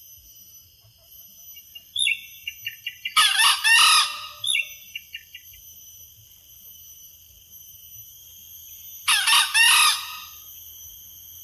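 Red junglefowl rooster crowing twice, each a short, clipped crow about a second long, about six seconds apart. Quick runs of short high notes come just before and just after the first crow.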